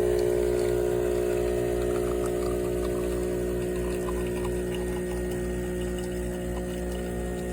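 De'Longhi ESAM3300 Magnifica espresso machine's pump running with a steady droning hum as it pushes water through, easing slightly in loudness.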